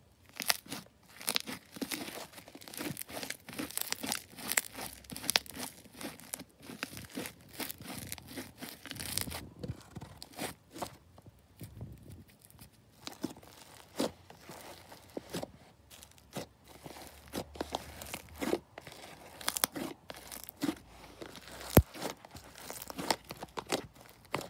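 Blue foam-bead slime being squeezed, stretched and poked by hand, giving a dense, irregular run of small clicks and crackles.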